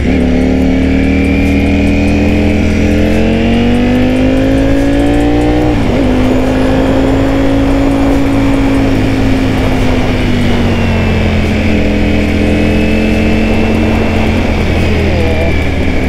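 Ducati Panigale V4S's 1,103 cc V4 engine pulling under acceleration, its pitch rising steadily, then dropping suddenly on an upshift about six seconds in. It then holds and falls gradually as the throttle is rolled off, settling lower near the end.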